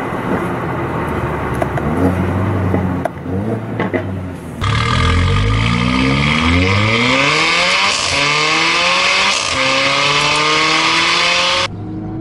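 Mercedes-AMG CLA 45's turbocharged inline four-cylinder engine and exhaust, revving up and down at first. Then, louder, it accelerates hard with the pitch climbing, broken by two upshifts, until it cuts off sharply near the end.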